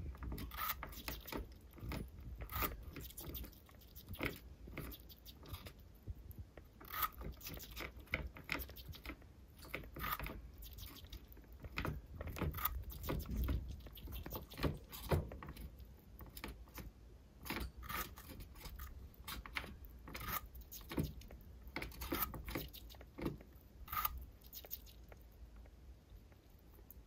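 A sugar glider biting and chewing pieces of apple, with small irregular crunches and wet crisp clicks.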